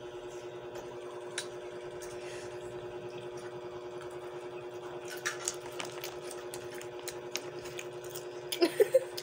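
Steady mechanical hum with an even, fast flutter, like a small electric motor running. Over it come a few soft clicks and rustles as a snack is handled and chewed, and a short cluster of louder sharp sounds near the end.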